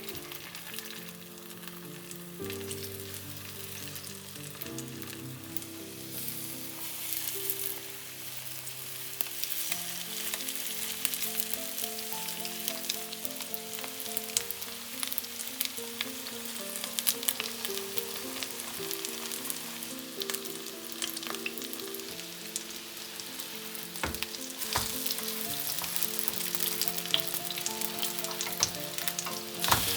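Food sizzling and crackling in hot oil in a frying pan, with a steady stream of small pops, under soft background music.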